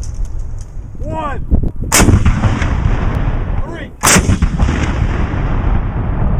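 German 8.8 cm Flak 36 88 mm anti-aircraft gun firing twice, about two seconds apart, over a continuous low rolling rumble. A short wavering whine comes just before the first shot.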